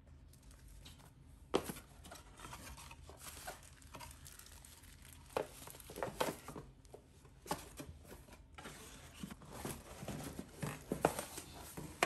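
Rustling and crinkling of unboxing packaging: paper manuals and paper-wrapped parts being handled and a cardboard insert lifted out, with irregular sharp taps and crackles.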